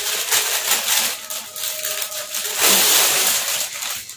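Clear plastic packaging bag crinkling and rustling as it is handled and pulled off a folded garment.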